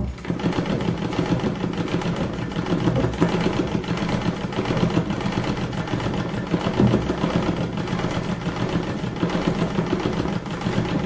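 Treadle sewing machine running at a steady pace, its needle stitching rapidly through fabric stretched in an embroidery hoop. It starts abruptly and keeps up a dense, even mechanical clatter.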